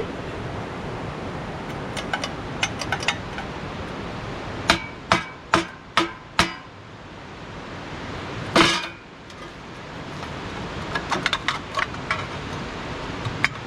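Knocks and clinks of metal work on a small sheet-metal battery box. About halfway through come five hard strikes at roughly two a second, then a short noisy burst, then a run of lighter clinks.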